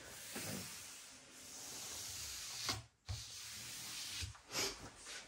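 Soft rubbing and handling noises of a wooden panel being moved and turned on the workbench, with a few light knocks and a brief gap about three seconds in.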